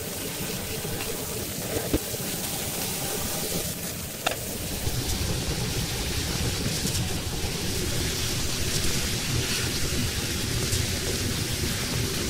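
Gas wok burner running at high flame with noodles sizzling in a steel wok: a steady rushing noise that gets louder about five seconds in. There are a couple of sharp metal clinks from tongs against the wok.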